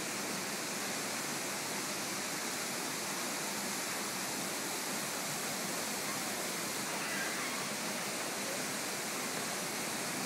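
Steady rushing of running water, with a few faint short high tones about seven seconds in.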